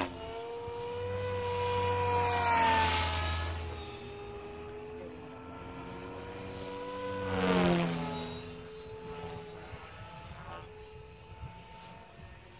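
Protos 500 electric RC helicopter flying: its rotor and motor whine glides up and down in pitch. It swells loudly as the helicopter sweeps past, about two seconds in and again near eight seconds, then grows fainter as it flies farther off.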